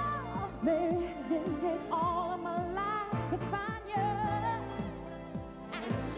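Female lead vocalist singing live over a pop-soul band with drums, her voice wavering through ornamented runs.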